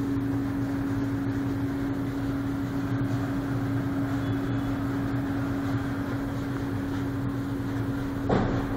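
Steady mechanical drone from a supermarket's outdoor machinery: a constant low hum over a rushing noise, with a brief louder noise near the end.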